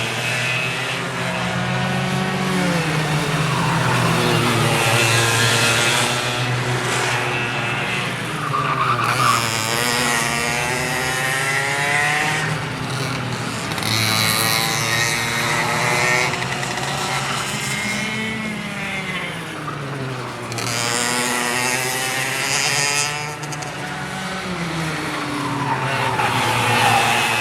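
Several go-kart engines running on a track, their overlapping notes rising and falling in pitch again and again as the karts accelerate and slow.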